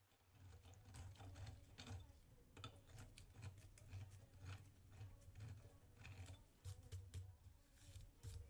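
Faint, irregular clicking and scraping of a hand deburring tool being run around the edges of tapped holes in a metal workpiece, over a faint low hum.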